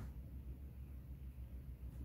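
Faint room tone: a low, steady rumble with no distinct sounds.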